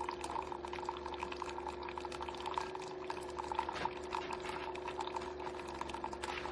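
Keurig coffee maker running a cycle: its pump gives a steady hum while water streams and sputters through the machine.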